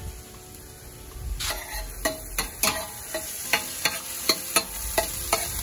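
Chopped onion sizzling in hot coconut oil in a stainless steel pot, with a metal spoon clinking and scraping against the pot about three times a second as it is stirred. The sizzle and clinks start about a second and a half in.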